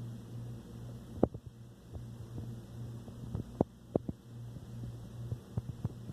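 Sharp knocks coming through the bathroom wall from the neighbouring unit, one about a second in and two close together around three and a half to four seconds in, with lighter clicks between them. A steady low hum runs underneath.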